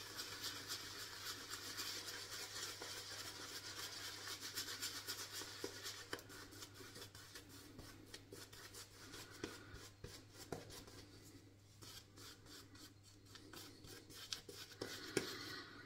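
Synthetic-bristle shaving brush scrubbing shaving lather over a stubbly face: faint, fast brushing strokes, steady for about the first half, then sparser with a few soft knocks.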